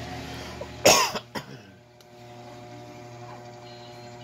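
A cough: one loud, sharp cough about a second in, followed by a shorter second one, over a steady electrical hum.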